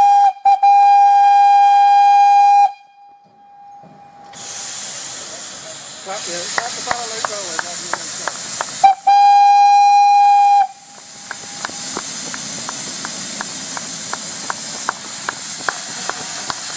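Narrow-gauge steam locomotive's whistle sounding a steady blast that breaks off briefly near the start and ends under three seconds in, then a second shorter blast about nine seconds in. Between and after the blasts steam hisses from the engine as it gets ready to move off, with a fast regular light ticking.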